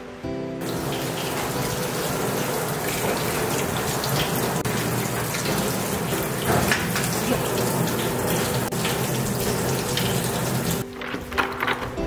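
Water running and splashing steadily, starting just after the beginning and stopping suddenly near the end, with background music underneath.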